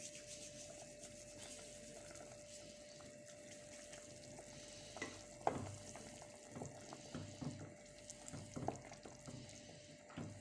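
Thyme rubbed between the hands into a cooking pot: faint rustling with scattered light taps and knocks, the loudest a sharp click about five seconds in. A steady faint hum runs underneath.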